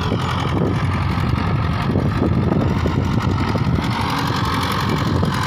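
HMT 5911 tractor's diesel engine running steadily under load as it pulls a three-bottom mouldboard plough through the soil.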